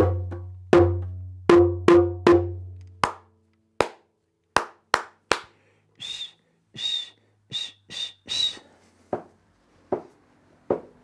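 A rhythmic break of percussion: an acoustic guitar's body slapped in a beat while its low open strings ring, then a run of hand claps, a few short whistles, and foot stamps near the end.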